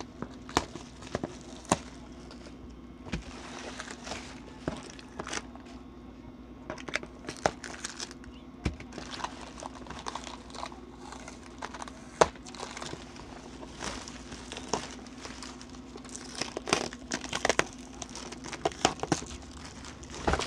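Plastic wrapping being handled and pulled off a boxed parcel: irregular crinkling with sharp crackles and snaps.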